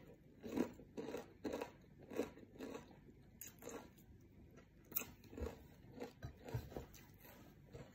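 Close-up chewing and crunching of a mouthful of fried rice and crispy fried anchovies (dilis), short crunches coming irregularly about twice a second.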